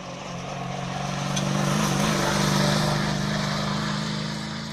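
Rally car passing at speed on a gravel stage: its engine note stays fairly steady in pitch, growing louder to a peak about halfway through and fading toward the end.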